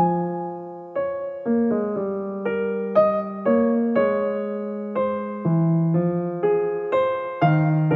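Background solo piano music, a gentle melody with notes struck about twice a second and left to ring.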